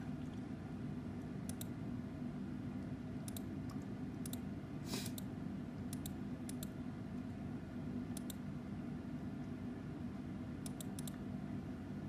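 Computer mouse clicking: scattered single clicks and quick runs of two or three, over a steady low hum.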